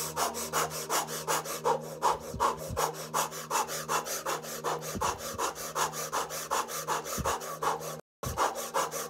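A woman breathing fast and rhythmically through pursed lips in a breathing exercise, about four quick breath sounds a second, with a faint steady hum beneath. The sound cuts out for a moment near the end.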